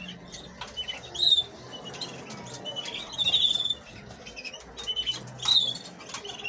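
Canary nestlings begging with short runs of rapid, high-pitched cheeping, a couple of seconds apart, as they are hand-fed with a syringe.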